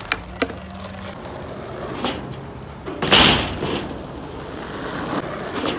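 Skateboard wheels rolling over rough asphalt, with a few sharp clacks of the board in the first half-second and a loud, gritty rush of noise about three seconds in that fades over a second.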